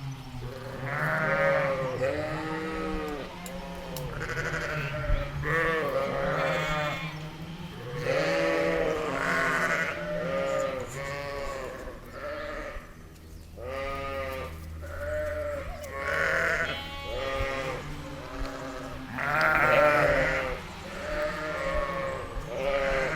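Sheep and lambs bleating, one wavering call after another, often overlapping, with no long pause.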